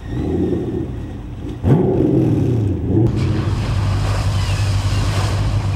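Amphibious car's engine running as it drives off the shore into the water. The engine revs up briefly about a second and a half in. From about three seconds in, water splashes and rushes around the vehicle over a steady engine drone.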